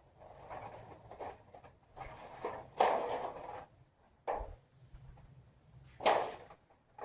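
Thin titanium stovepipe sheet being handled and rolled into a pipe by gloved hands, with irregular rustling and crinkling; the loudest bursts come about three seconds in and again about six seconds in.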